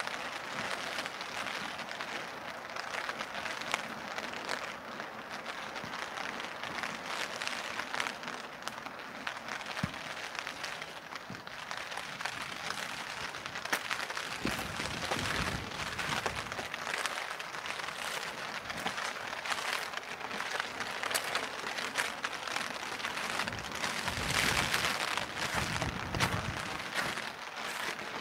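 Steady rain pattering: a dense hiss made of many small drop impacts. Two stretches of low rumble come in about halfway through and again near the end.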